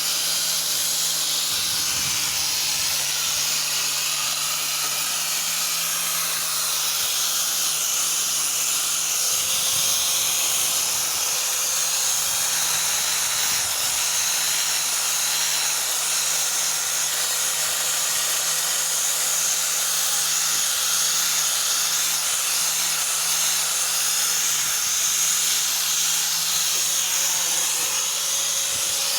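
A small power tool running steadily, giving a continuous hiss over a low hum, while working rust off a Yamaha V80 engine's metal.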